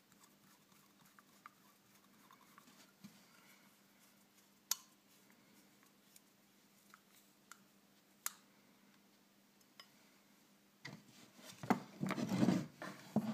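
Small metal hand-tool work on a model nitro engine: a hex driver turning and scraping in screw heads, with a few sharp metallic ticks. Near the end a louder run of clatter and rattling as the engine and its loose screws are handled.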